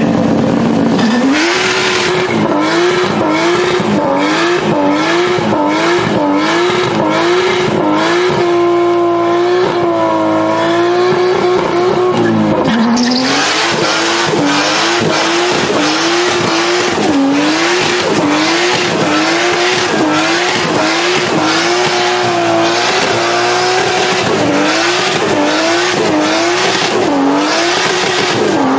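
Toyota Supra engine held at high revs through a burnout, its pitch dipping and climbing about once a second as the throttle is worked, over the squeal and hiss of spinning rear tyres. The tyre hiss grows heavier about halfway through.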